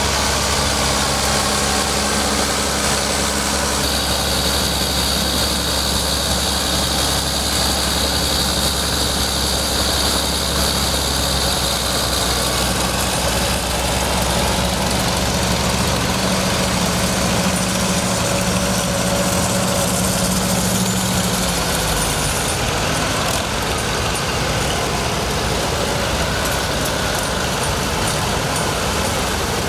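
Vintage farm tractors driving slowly past one after another, engines running steadily at low speed, the engine note shifting every few seconds as a different tractor goes by. A John Deere 4430 passes first, followed by International Harvester and Farmall tractors.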